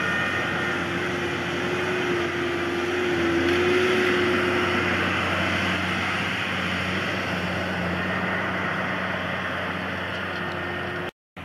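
New Holland T7050 tractor's diesel engine running steadily under load while it pulls a Kaweco Thorium 45 loader wagon picking up grass. A steady whine sounds over the first half. The sound cuts out for a moment near the end.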